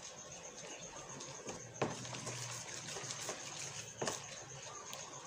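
A spoon stirring wet rice-flour batter in a plastic tub, with two sharp knocks of the spoon against the tub, about two seconds in and again about two seconds later. A thin, steady high-pitched whine runs behind it.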